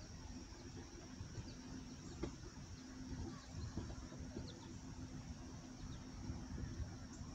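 Faint ambience aboard a small boat on calm water: a low rumble with a steady low hum that settles in after a few seconds, a thin steady high-pitched insect drone, and a few short bird chirps.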